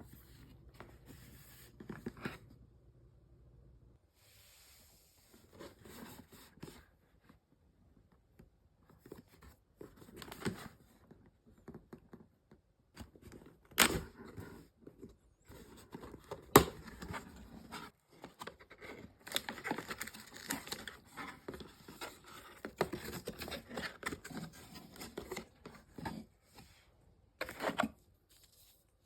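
Packaging being opened by hand: paper and cardboard rustling, tearing and scraping in irregular bursts, with two sharp knocks about halfway through.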